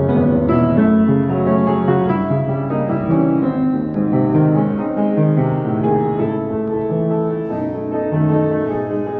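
Piano being played: a flowing run of single notes and chords in the middle and low register, each note struck and left to ring into the next.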